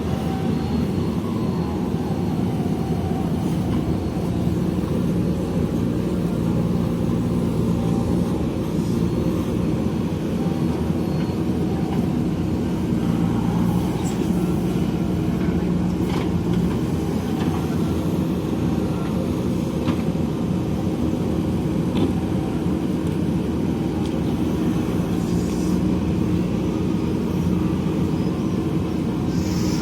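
JCB backhoe loader's diesel engine running steadily as the machine digs, with a few light clicks scattered through it.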